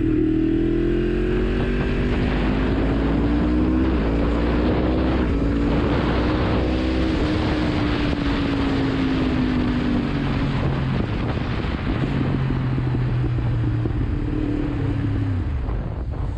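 Yamaha MT-10's crossplane inline-four engine running while the motorcycle is ridden, its pitch rising for about seven seconds, then easing off and falling, dipping again near the end. Wind rushes over the microphone throughout.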